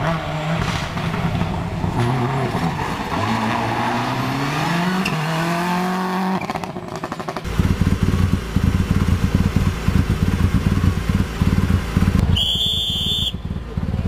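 Rally car engine revving hard, its note climbing as the car accelerates along the stage. After a cut a loud, choppy low rumble takes over, with a brief high steady tone near the end.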